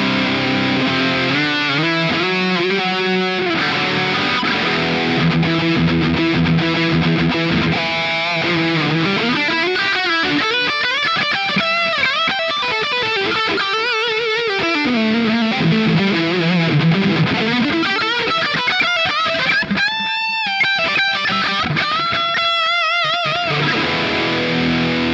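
PRS Custom 24 electric guitar playing a lead line of held notes with wide vibrato and string bends.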